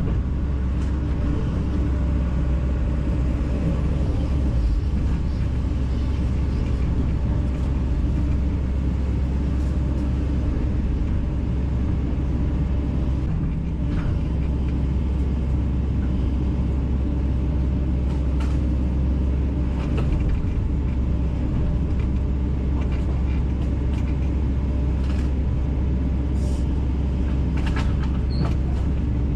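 Kobelco SK210LC-9 excavator's diesel engine running steadily as a deep, even drone, with a few faint clicks and knocks.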